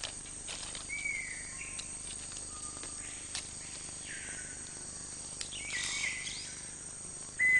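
Amazon rainforest ambience: a steady high-pitched insect drone with a few whistled bird calls, some sliding down in pitch, spaced a couple of seconds apart, and faint scattered clicks.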